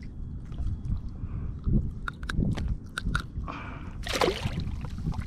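Water sloshing against a kayak, with a few sharp clicks around the middle and a short splashy burst about four seconds in, over a low rumble of wind on the microphone.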